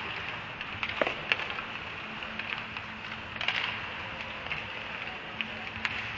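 Ice hockey game sound: skates scraping across the ice with sharp clacks of sticks and puck, two loud ones about a second in, over a steady low hum of the rink.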